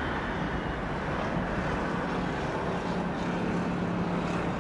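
A 16-car Shinkansen bullet train running along an elevated viaduct at a distance: a steady rushing noise with a faint low hum under it.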